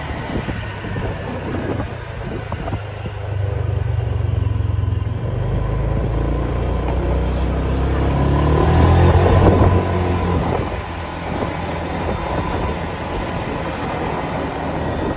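Street traffic: a motor vehicle engine gets louder and climbs in pitch, is loudest about nine seconds in, then drops away.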